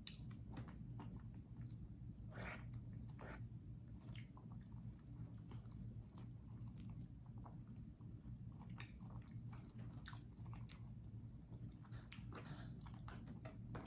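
Close-up chewing and mouth sounds of a person eating soft food, faint wet clicks scattered throughout, over a steady low hum.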